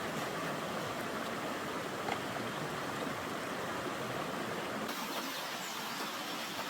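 Steady rush of a river's running water, with a few faint clicks. About five seconds in, the sound turns thinner and hissier.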